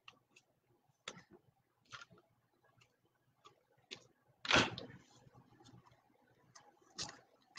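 Sparse light clicks and taps from trading cards and packs being handled on a desk, with a louder knock about four and a half seconds in and another near the end.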